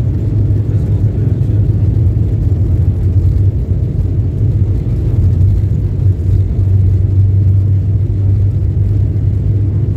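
Jet airliner heard from inside the cabin while it rolls along the ground: a steady, loud, low rumble of engines and airframe.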